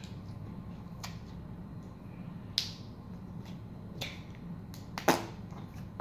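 Flarp noise putty being squeezed and pulled, giving a few short sticky pops and squelches, the loudest about five seconds in.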